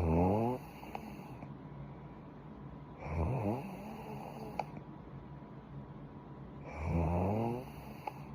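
A sleeping woman snoring: three pitched, rasping snores, each under a second long, coming about every three and a half seconds in a regular sleep-breathing rhythm.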